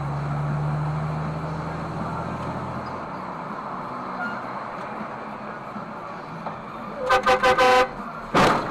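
Road noise from a car driving on a wet road, with a low engine drone for the first few seconds. About seven seconds in, a car horn gives a rapid run of five short toots. A brief, loud, sharp burst of noise follows.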